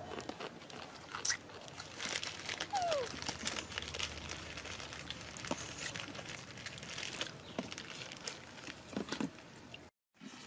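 Plastic snack packet crinkling and rustling, with scattered crunching clicks and one short falling squeak about three seconds in.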